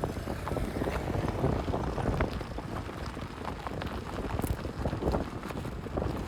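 A car being driven: tyre and road rumble with wind buffeting the microphone, and many small knocks and taps throughout.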